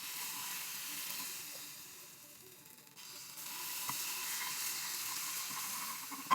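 Oil sizzling in a hot frying pan for pancakes. The sizzle dies down a little, then swells up again about three seconds in.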